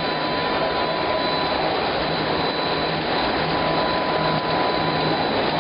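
Instant noodle production line machinery running, a steady even mechanical noise with two thin steady whining tones on top.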